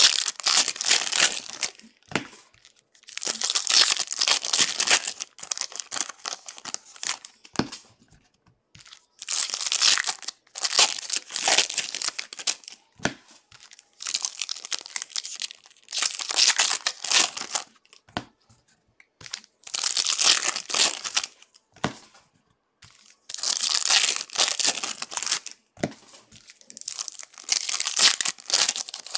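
Bowman baseball card pack wrappers being torn open and crinkled by hand, in repeated bursts a second or two long every couple of seconds with short pauses between.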